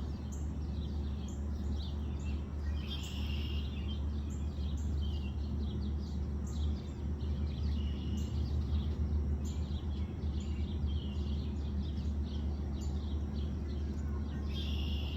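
Birds chirping and calling over and over, some calls falling in pitch, over a steady low rumble.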